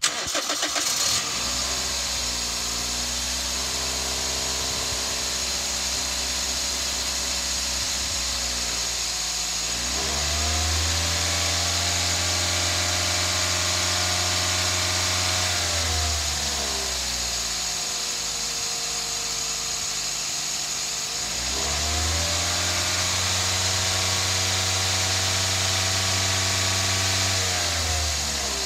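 Toyota four-cylinder VVT-i petrol engine catching at the very start and settling from a fast idle to a steady idle. It is then revved twice and held at a higher speed for about six seconds each time, dropping back to idle in between and again near the end.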